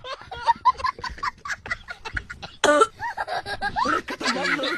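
A person's voice in rapid, short, high-pitched bursts, about four or five a second, with one much louder burst about two and a half seconds in.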